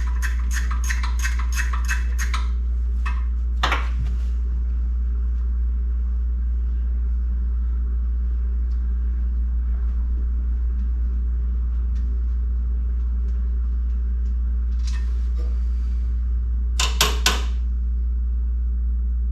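Socket ratchet clicking rapidly, about five clicks a second, as header bolts are worked loose, stopping a little over two seconds in. Then come occasional metal clinks and three sharp knocks close together near the end, over a steady low hum.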